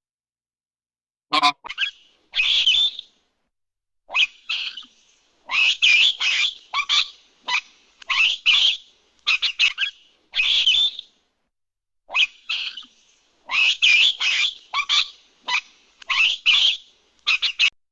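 A bird calling over and over in quick runs of short, high calls, with brief pauses between the runs.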